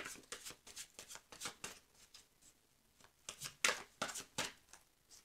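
Tarot deck being shuffled in the hands: a quick run of papery card slaps and flicks, a pause of about a second, then a few louder slaps before it trails off.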